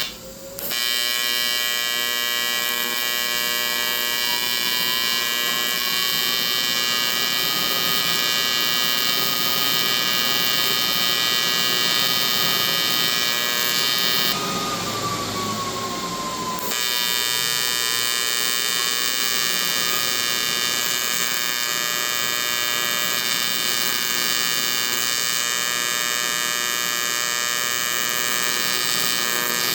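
AC TIG welding arc on aluminum, buzzing steadily with a faint tone gliding up in pitch over the first several seconds. About halfway through the buzz drops out for a couple of seconds, leaving a hiss, then starts again.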